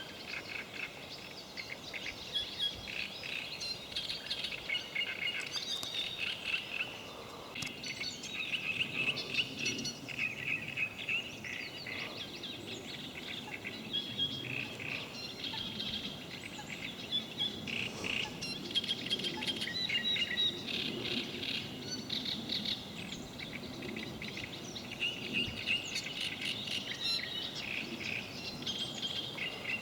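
Several songbirds singing at once, a dense mix of overlapping chirps and trills.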